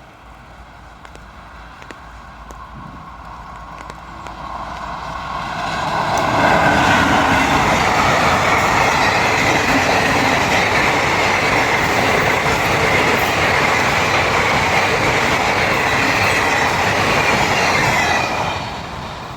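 Passenger train passing close by at speed: the wheels rumbling on the rails, building over about six seconds, staying loud and steady with a high ring for about twelve seconds, then dropping off sharply near the end.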